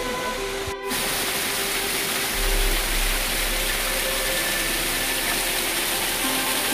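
Waterfall spilling down a rock face and splashing, a steady rushing hiss, with soft held music notes underneath. The sound cuts out very briefly about a second in.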